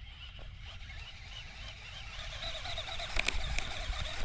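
Quiet outdoor marsh ambience with a faint, wavering high-pitched trill. Soft clicks start about three seconds in.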